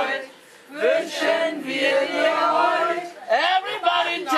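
Small group of men and women singing a song together, with a brief break in the singing about half a second in.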